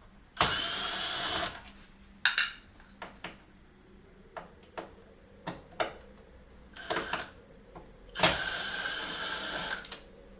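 Power drill-driver backing screws out of a plasma TV's plastic back cover: two longer runs of the motor whining, about a second and then nearly two seconds, with short blips between and light clicks of handling.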